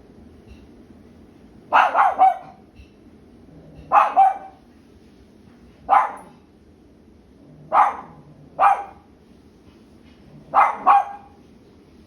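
A Cavapoo barking in short bursts about every two seconds: some single barks, some quick runs of two or three.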